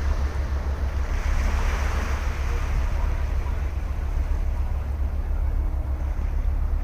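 Ocean surf on a sandy beach: a steady wash of waves, swelling louder as a wave breaks and runs up about one to two seconds in, over a steady low rumble.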